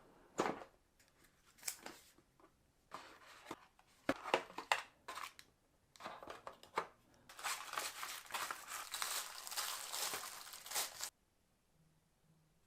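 A smartphone's retail packaging being opened and handled: scattered clicks and rustles, then a few seconds of continuous crinkling and rustling that stops suddenly near the end.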